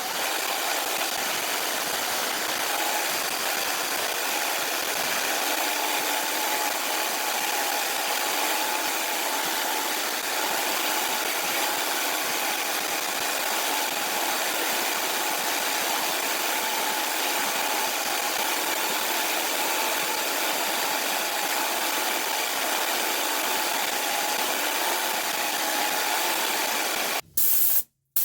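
Power saw running steadily while cutting stabilized wormy maple handle scales to shape, a steady even noise with a faint hum; it stops near the end.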